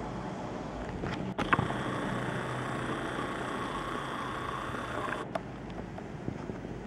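Steady distant urban background rumble. From about a second and a half in to about five seconds, a whirring sits on top, starting and stopping with a click: the camcorder's zoom motor as the view pulls back.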